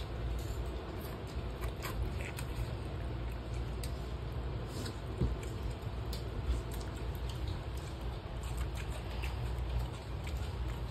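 People eating a meal of roti, rice and egg curry: chewing and many scattered small clicks and taps of food and plates, over a steady low hum.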